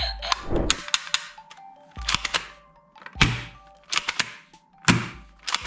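Hard plastic toy guns knocking and clattering against each other and the cardboard box as they are handled and lifted out, a series of irregular short thunks about once a second.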